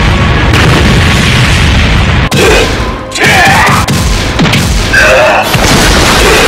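Dubbed-in explosion sound effect: a loud blast whose rumble runs for about two seconds, followed by further booms with swooping, gliding cries laid over them.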